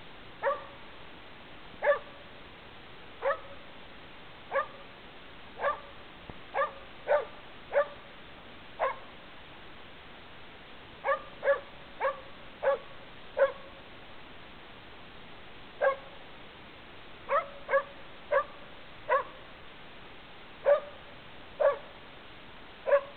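A mountain cur barking treed: single short barks, mostly about a second apart, with a couple of brief pauses. The dog is treed on a squirrel, barking at the tree to mark it.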